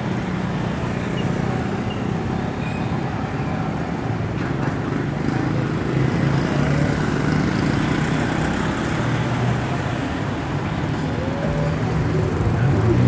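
Street traffic: a steady hum of vehicle engines and tyres, with a car engine getting louder near the end as it passes close.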